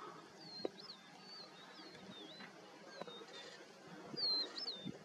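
A bird singing a string of short, high whistled notes, each a quick swoop up or down in pitch, repeated over and over. The loudest phrase comes a little after four seconds in.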